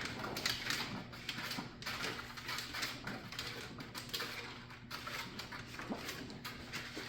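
Flat heat tape being worked and fed through a slot in a plastic reptile rack: irregular scraping, rustling and light clicking.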